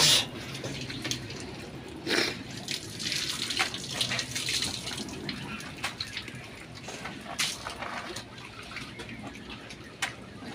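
Water splashing and sloshing in a plastic tub as a hand rummages through live blue swimming crabs, with small clicks of shells knocking together. There is a loud splash at the start and another about two seconds in.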